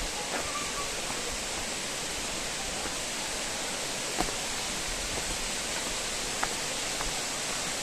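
Steady rush of flowing water from a forest stream and waterfall, with a few short sharp clicks about four and six and a half seconds in.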